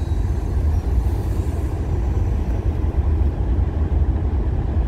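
Steady low rumble of a slowly moving car: engine and road noise, with no sharp events.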